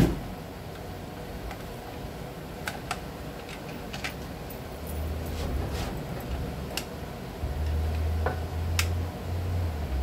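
Scattered light clicks and ticks of small screws and an Allen key being handled while screws are backed out of a plastic mower handle housing, with a sharp knock right at the start. A low rumble comes and goes in the second half.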